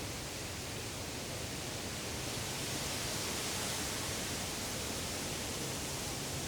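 Woodland ambience: a steady rushing noise that swells slightly a few seconds in, with no distinct calls or knocks.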